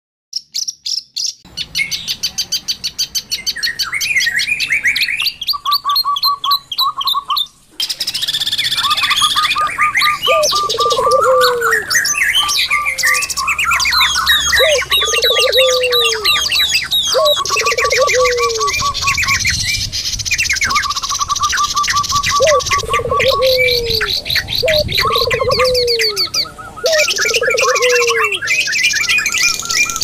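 Several songbirds singing at once, their rapid chirps and trills layered thickly over one another. From about ten seconds in, a short falling call keeps coming back lower down every second or two. This is a mixed bird-song 'masteran' recording of the kind played to caged songbirds to teach them new calls, and it drops out briefly near eight seconds in.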